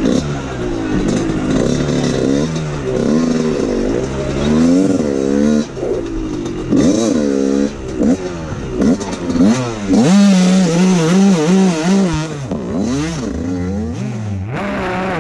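Dirt bike engine revving up and down again and again as it is ridden, the throttle opened and closed in quick swells. Near the end the engine holds one steady pitch.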